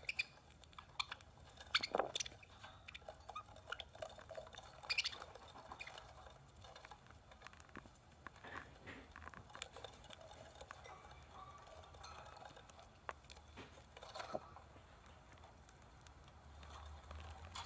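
A budgie's beak tapping and pecking at an iPad's glass screen: irregular light clicks and taps, a few louder ones among them.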